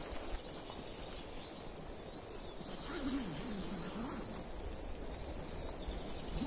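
Outdoor ambience: a steady low hiss with faint, scattered high bird chirps, and a brief low wavering sound a little after halfway through.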